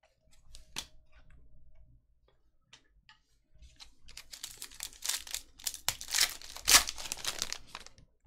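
Foil wrapper of a pack of basketball trading cards crinkling and tearing as it is ripped open, starting about three and a half seconds in and loudest near the end. Before that come a few light clicks of cards being handled.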